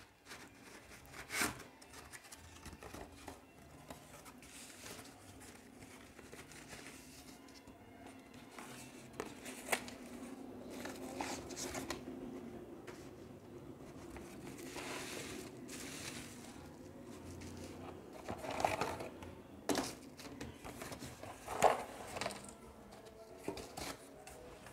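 Cardboard box being opened and unpacked by hand: flaps and packing rustling and crinkling, with scattered light taps. Quiet throughout.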